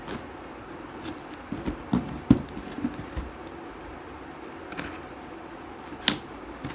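Small knife slitting the packing tape along the seam of a cardboard shipping box: scattered short scratches and clicks of blade, tape and cardboard, the sharpest about two seconds in and another near six seconds.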